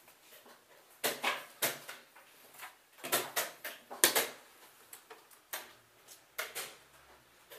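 A series of sharp wooden knocks and clicks of chess pieces being set down on the board and the buttons of a digital chess clock being pressed, the loudest about four seconds in.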